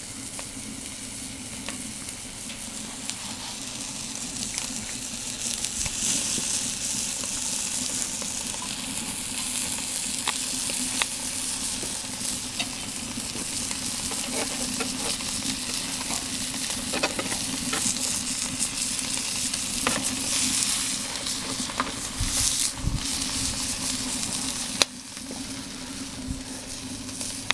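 Hamburger patties sizzling in an aluminium foil pan on the grate of a wood-fired rocket stove, a steady hiss with occasional small pops. A sharp click comes near the end, after which the sizzle is quieter.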